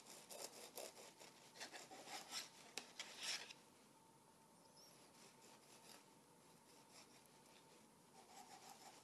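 Faint rasping strokes of a bread knife sawing through the crusts of a brown-bread sandwich: a quick run of strokes for the first three seconds or so, then mostly quiet with a few light strokes near the end.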